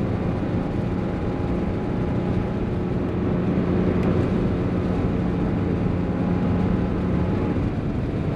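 1987 Porsche 911 Carrera's air-cooled 3.2-litre flat-six running under way, heard from inside the cabin with road noise. The engine note holds steady, then drops lower near the end.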